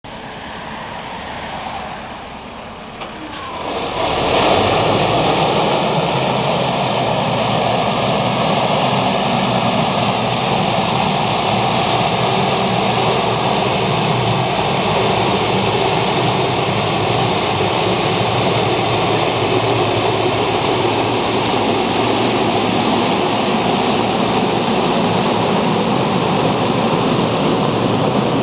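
Air-blast sprayer's large fan blowing, with the tractor's diesel engine running under it. About four seconds in the sound grows louder into a steady rush of air and spray that holds.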